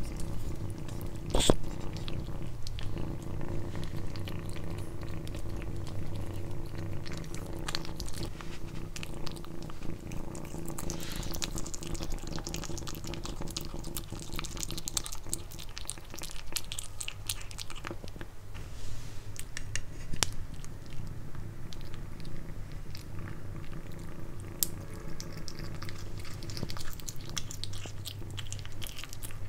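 Kitten chewing and licking chunks of raw pork: many small wet clicks and smacks over a steady low rumble.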